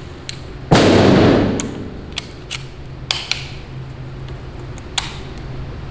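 Shells being loaded by hand into the tube magazine of a MAC M1014 semi-automatic 12-gauge shotgun: a run of sharp metallic clicks spread through the few seconds. About a second in there is one loud bang, much louder than the clicks, whose echo dies away over about a second.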